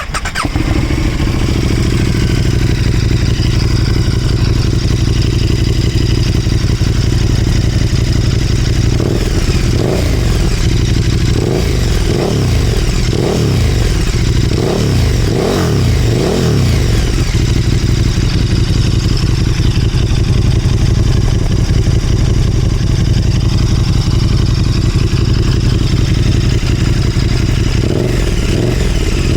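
KTM 1290 Super Duke GT's V-twin engine idling through a titanium replica Austin Racing exhaust with a small dB-killer baffle inserted. It is blipped in a run of quick revs from about nine to seventeen seconds in, settles back to idle, and revs briefly again near the end.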